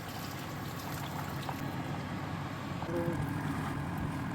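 A steady low rumbling noise, with a brief short tone about three seconds in.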